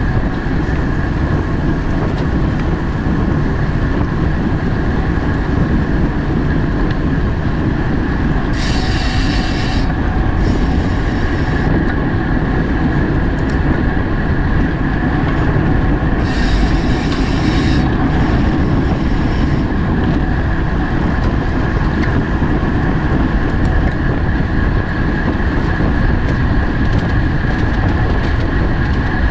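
Steady rush of wind and rolling noise from a racing bicycle at speed. Twice, about a third of the way in and again past halfway, comes a pair of short buzzing rattles: a rear freehub ratcheting as the rider coasts.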